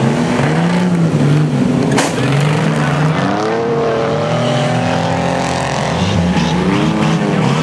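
Engines of several speedway race cars lapping a dirt oval, their pitches overlapping and rising and falling as they accelerate and ease off through the bend. A single sharp crack about two seconds in.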